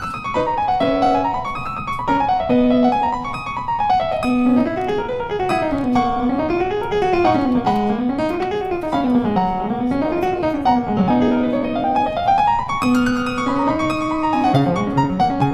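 Background piano music, with quick runs of notes rising and falling over held lower notes.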